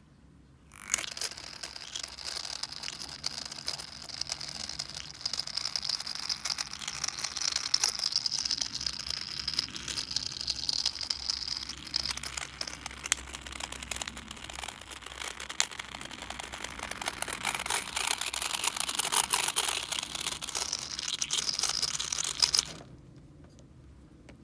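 GEX submersible aquarium filter making an abnormal crackling, rattling noise: rapid irregular clicks over a steady hiss. It starts suddenly about a second in and cuts off suddenly near the end. The owner does not know what is causing the noise.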